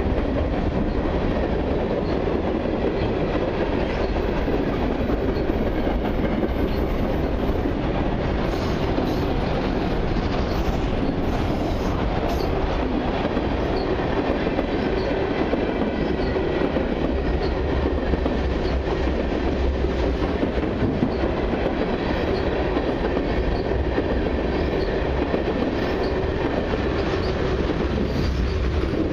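Freight train cars, gondolas and then tank cars, rolling past close by: a steady rumble and rattle of steel wheels on the rails.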